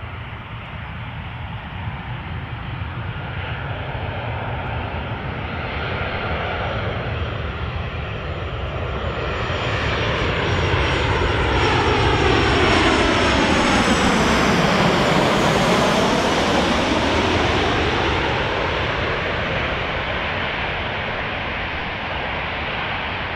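Boeing 737 jet engines passing by. They grow louder to a peak around the middle, with a phasing sweep that falls and then rises again as the aircraft goes past, then ease off into a steady rumble.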